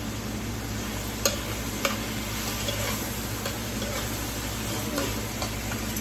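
Metal spoon stirring chicken feet in a sizzling frying pan, with sharp clicks of the spoon against the pan. The two loudest clicks come about a second and two seconds in.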